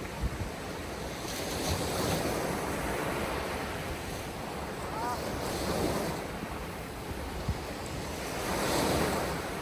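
Surf breaking and washing up the beach, swelling louder with each wave about every three to four seconds, under strong wind buffeting the microphone.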